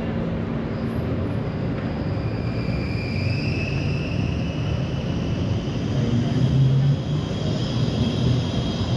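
Electric city tram running alongside, its motor whine rising slowly in pitch from about three seconds in, over steady street noise.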